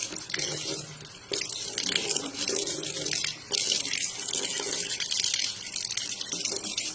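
Kitchen faucet running into a stainless steel sink, the stream splashing over a cat's head: a steady rush of water that dips briefly twice.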